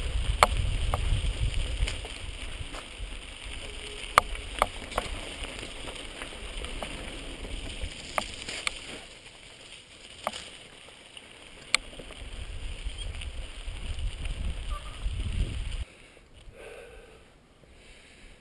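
Mountain bike riding down a dry, rocky dirt trail, heard from a camera on the bike or rider. Wind rumbles on the microphone over tyre noise, with sharp knocks and rattles every few seconds as the bike hits rocks. About sixteen seconds in the sound drops suddenly to a much quieter level.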